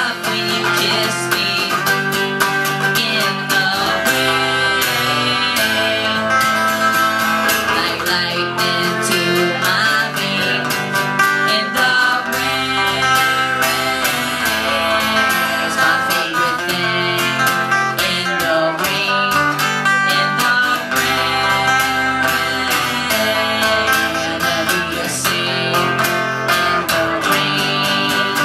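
Two guitars playing a live instrumental passage with no singing: an acoustic guitar strumming chords steadily while a second guitar plays along.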